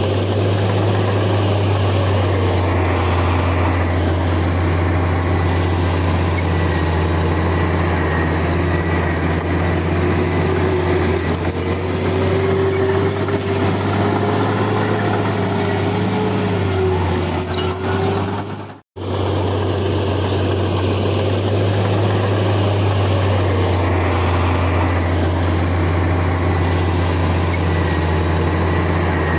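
Heavy diesel earthmoving machinery running steadily under load, a deep engine drone with a whining tone that rises and wavers midway. The sound cuts out for an instant about two-thirds of the way through.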